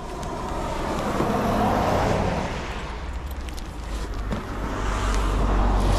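Road traffic: cars passing on a nearby road, the noise swelling about two seconds in and again near the end, over a low wind rumble on the microphone.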